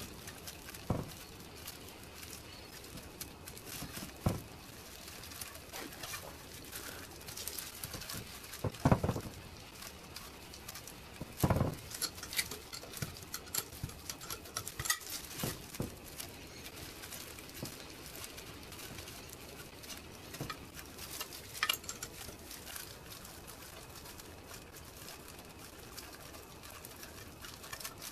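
Rain pattering on a roof, with a few louder knocks scattered through it from metal engine parts and a spanner being handled on a workbench.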